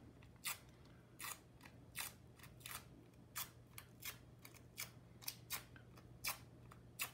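Adhesive dust-absorber sticker dabbed repeatedly onto an iPhone's glass screen to lift dust: light, short clicks about twice a second as it is pressed on and pulled off the glass.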